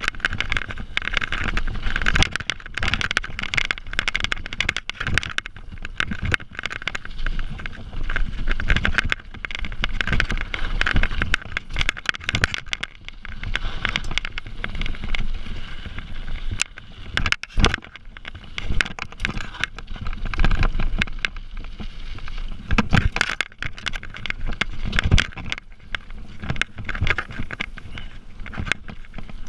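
Mountain bike descending fast on a rough dirt trail: tyres rolling over packed dirt and loose stones, with constant irregular rattles and knocks from the bike over bumps, and a low wind rumble on the microphone.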